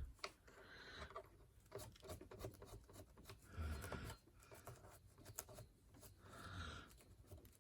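Faint rubbing and swishing of a cloth wiping down a vacuum cleaner's power cord, in a few separate strokes, with light clicks and knocks in between.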